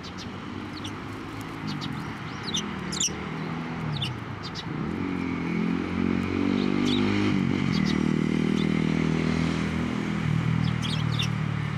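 A passing motor vehicle's engine, its pitch shifting up and down as it goes by, loudest in the middle. Short high chirps from tree sparrows come several times over it.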